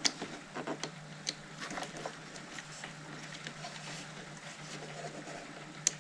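Scattered light clicks and taps from handling a model locomotive's trucks and small parts, over a steady low hum, while the motor and trucks are being tested.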